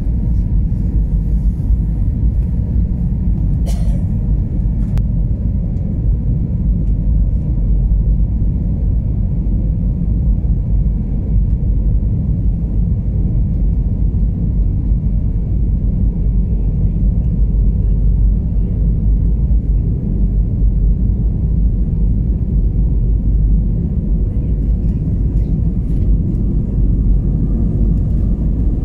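Steady low rumble inside the cabin of an Airbus A320 on final approach: engine and airflow noise heard from a window seat over the wing. A brief click sounds about four seconds in.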